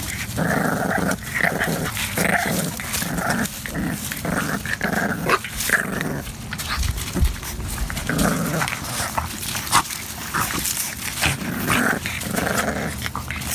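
Puppies play-growling in a string of short growls while mouthing and tussling with a hand, with paws scuffling on gravel.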